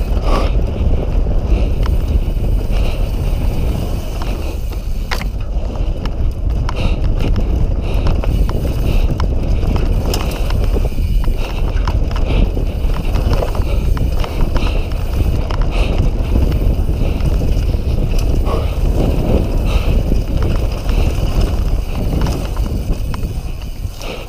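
Downhill mountain bike running fast over a dirt forest trail: a continuous rumble of wind on the microphone and tyres on dirt, with scattered clicks and knocks from the bike rattling over bumps.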